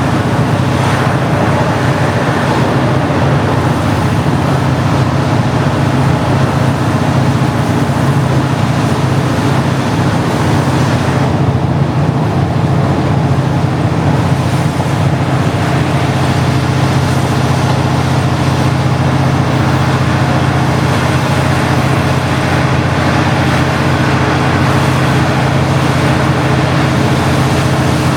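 Large diesel engine running at a steady speed, heard from on board, with a constant low hum and road-like rushing noise.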